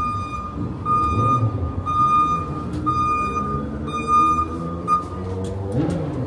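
A vehicle's reversing alarm beeping about once a second over street traffic noise, stopping about five seconds in.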